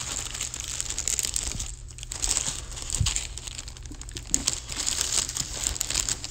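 Plastic fish-shipping bag crinkling and rustling as it is handled, with many small crackles, over a steady low hum.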